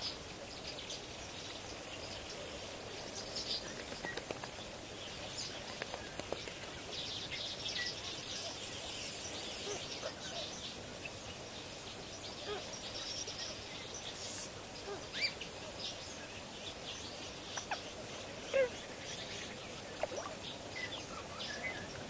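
Wetland birds calling: many short chirps and calls, scattered and in a denser run of chatter about a third of the way in, with a few brief louder calls near the end, over a steady outdoor hiss.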